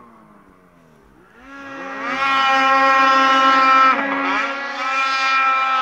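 Snowmobile engine revving up to a high, steady whine. The pitch dips briefly about four seconds in, climbs again, then drops away near the end.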